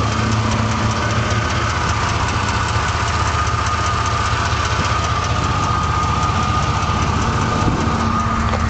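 Truck engine idling roughly with a quick, regular clicking that the owner says seems to come from the bottom of the motor. Not the lifters, which were adjusted, and not an exhaust leak, which was fixed.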